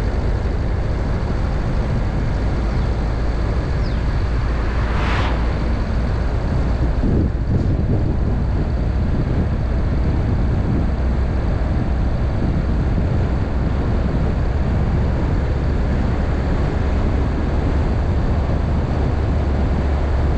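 A car driving on the road: a steady low rumble of engine and tyres with road noise, and a brief louder whoosh about five seconds in.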